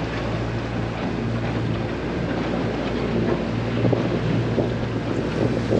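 Boat engine running steadily under way, with wind buffeting the microphone.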